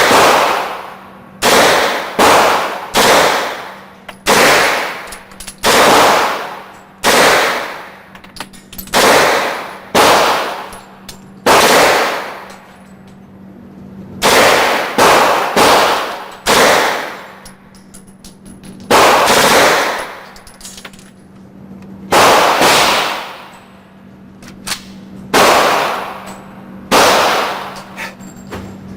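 9mm gunshots fired one at a time, about two dozen at roughly one-second intervals with some quick pairs, each shot ringing off the walls of an indoor range.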